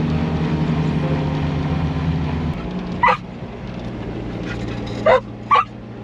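A vehicle engine running steadily, dropping to a lower, quieter hum about two and a half seconds in. A dog in the cab gives three short yips, one in the middle and two close together near the end.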